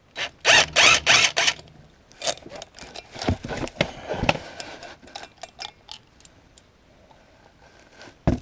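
DeWalt cordless impact wrench hammering in three short bursts about half a second in, backing off the bolt that holds the electric PTO clutch on the mower's crankshaft. This is followed by scattered small metallic clicks and clinks as the loosened hardware is handled.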